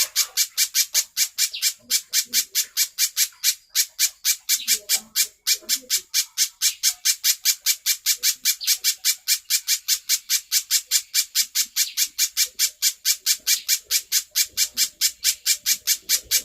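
Spiderhunter calling non-stop: a fast, even series of short, sharp, high-pitched chip notes, about five a second.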